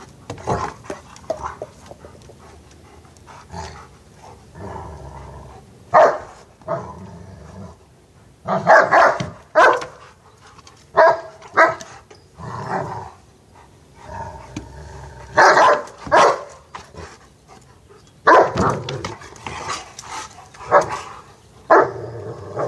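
Two large curly-coated dogs play-fighting: a dozen or so short, sharp barks at irregular intervals, with low play growls in between.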